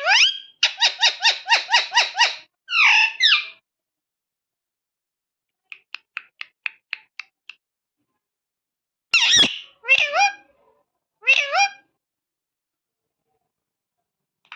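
Parrot vocalising: a rising call, then a fast run of about ten repeated notes, a pair of calls, a string of short soft chirps, and three separate calls with bending, speech-like pitch near the end.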